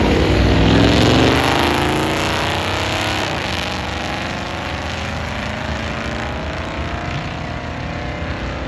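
Drag car launching and accelerating hard, its engine note climbing steeply in pitch with a shift about three seconds in, then fading as it pulls away down the strip.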